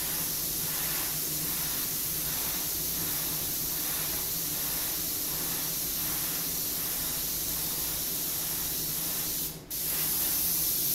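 Iwata HP-CS airbrush spraying transparent black: a steady hiss of air and paint, broken briefly near the end.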